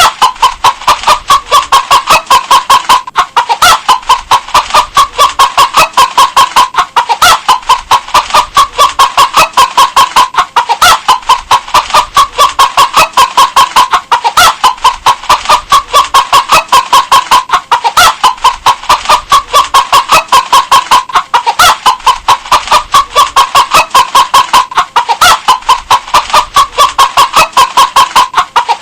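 Hen clucking continuously in a fast run of short, evenly spaced clucks. The same few seconds of clucking repeat every three and a half seconds or so, as a loop.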